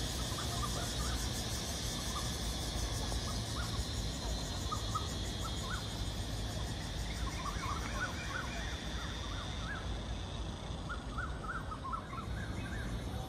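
Birds chirping in many short, scattered calls over a steady high hiss and a low steady rumble.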